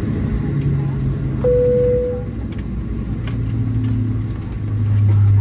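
Steady low rumble inside the cabin of a Boeing 737-700, with a single cabin chime about a second and a half in and a few light clicks. A steady low hum grows louder near the end.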